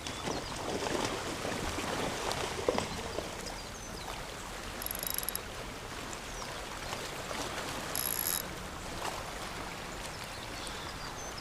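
Steady wash of shallow water around a rocky reef shoreline, with two short faint high-pitched rattles about five and eight seconds in.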